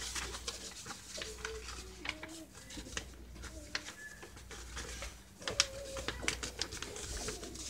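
A sheet of printer paper being handled and folded: irregular crinkles, rustles and sharp creasing clicks, with a few faint short wavering tones underneath.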